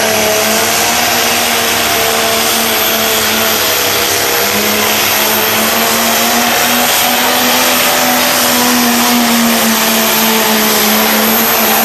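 Turbocharged diesel pulling tractor engine running flat out under full load while dragging a weight-transfer sled, a loud steady roar whose pitch holds nearly constant, shifting slightly about four seconds in.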